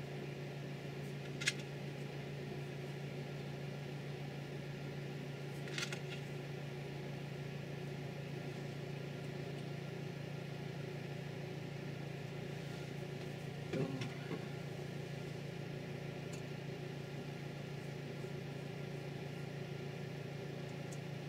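A steady low hum, with a few light clicks and taps of small screws and a screwdriver being worked on an aluminium heatsink.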